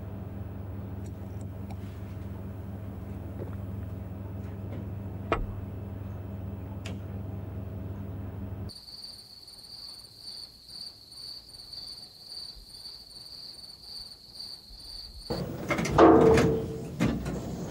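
A steady low hum, then after about nine seconds crickets trilling steadily and high-pitched in a pulsing drone. Near the end a sudden loud noise breaks in.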